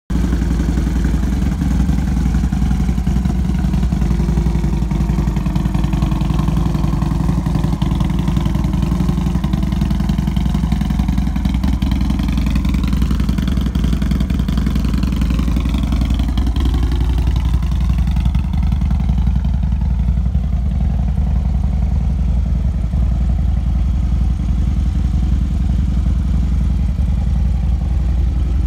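2013 Harley-Davidson Dyna Wide Glide's air-cooled Twin Cam 103 V-twin idling steadily, with no revving.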